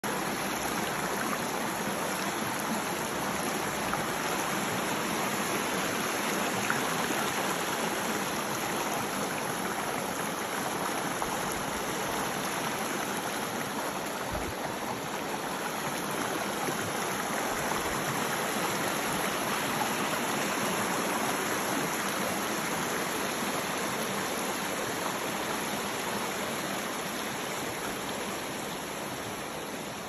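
Mountain creek running over rocks and through shallow riffles: a steady rush of flowing water, easing a little near the end.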